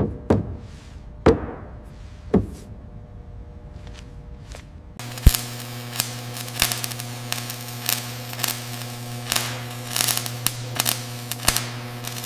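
A few sharp metal clanks with ringing tails. About five seconds in, a welding arc starts: a steady electric buzzing hum with irregular crackles and pops, as of MIG welding on steel.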